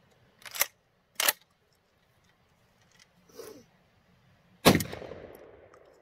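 Two sharp clacks, then a single shotgun shot from a gas-operated semi-automatic shotgun about three-quarters through, its echo fading away, with a second shot right at the end. The gun is firing Özkursan KOM duck shells, with which it has been failing to feed and eject.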